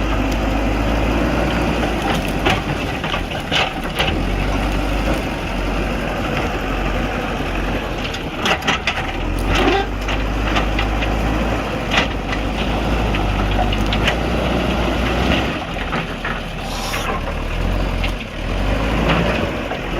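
JCB backhoe loader's diesel engine running steadily under load, with scattered sharp cracks and knocks of wood and roots breaking as the tree is dug out and pushed.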